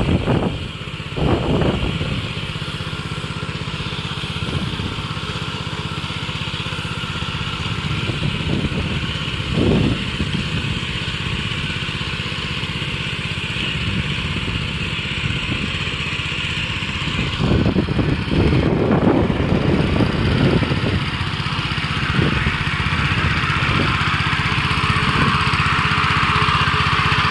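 Small engine of a Bartech PM100 motorized sprayer running steadily, with wind buffeting the microphone in repeated gusts.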